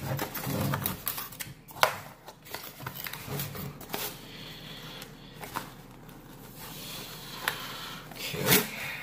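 A cardboard retail box being handled as a tightly fitted inner package is worked out of it: scraping and rustling of card, with scattered sharp clicks and taps.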